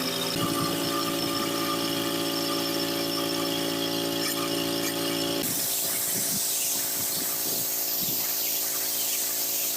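A motor-driven machine running steadily with a whine. About five and a half seconds in, the sound cuts abruptly to a hissier machine noise.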